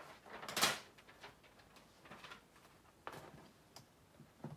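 Small handling noises at a work desk: a few short rustles and taps, the loudest about half a second in.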